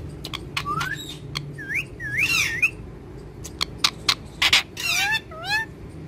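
Green parrots calling: a string of rising and wavering whistle-like calls mixed with short, sharp squawks.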